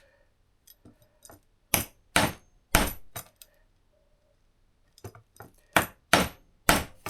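Hammer tapping a metal pin through a knife's replacement handle to seat it. The taps come in two runs, each starting with a few light taps and then several harder, sharp strikes, with a pause of about two seconds between the runs.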